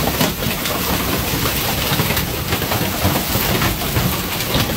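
Heavy rain mixed with hail pelting the ground and a parked car: a loud, steady, dense rush full of small rattling impacts.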